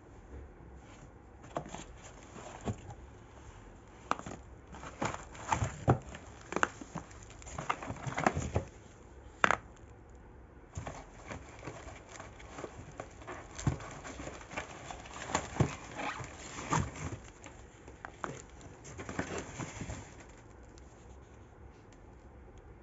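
Unboxing handling noise: plastic packaging crinkling, with irregular light taps and knocks as the contents are moved. It comes in clusters and stops about 20 seconds in.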